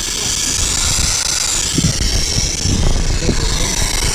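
Steam and coolant hissing loudly and steadily from a torn radiator hose on a Husqvarna TE 250 dirt bike lying on its side, with a low rumble underneath.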